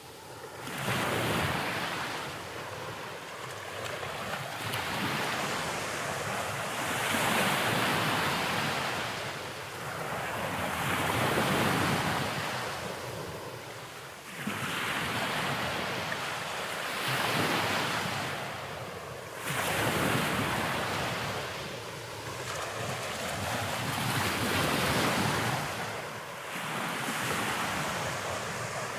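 Rushing wind and sea surf on an exposed clifftop, rising and falling in swells every two to five seconds, with gusts buffeting the microphone.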